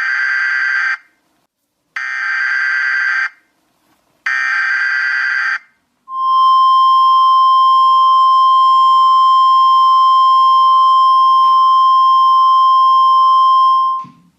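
Emergency Alert System broadcast opening: three short bursts of digital header tones about a second apart, then a loud, steady single-pitched attention tone held for about eight seconds. The tone cuts off near the end.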